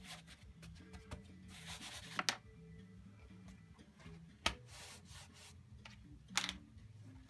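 Short rubbing and brushing strokes on a painted canvas, with a sharp tap about four and a half seconds in, over quiet background music.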